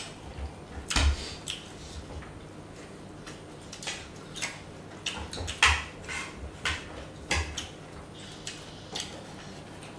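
Fork and spoon clinking and scraping on dinner plates at irregular intervals, with a louder clink about a second in and another between five and six seconds in.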